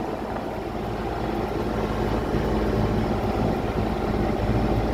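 RTV utility vehicle engine running steadily under way, a low even drone that grows slightly louder over the first couple of seconds.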